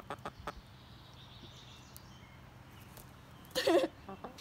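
A few short hen clucks at the start, then one loud, short hen squawk about three and a half seconds in.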